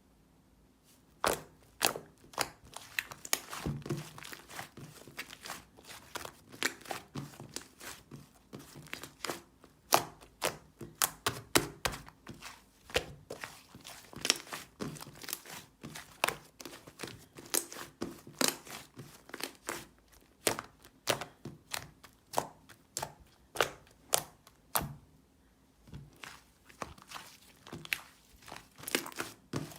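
Slime being squished and folded by hand, giving off irregular sharp clicks and pops as trapped air bursts, a few each second with short pauses.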